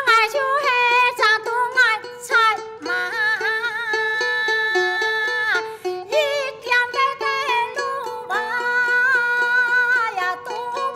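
A woman sings a Hakka mountain song in the five-line clapper style, beating time on bamboo clappers with a steady run of sharp clicks, while a round-bodied Chinese plucked lute plays along.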